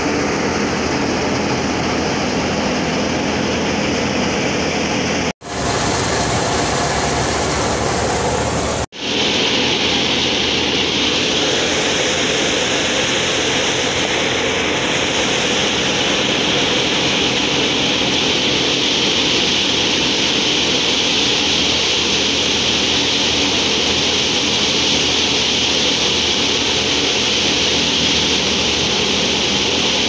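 Tractor-driven wheat thresher running under load as wheat sheaves are fed into it: a loud, steady mechanical drone with a hiss over it. The sound breaks off for an instant twice, about five and nine seconds in.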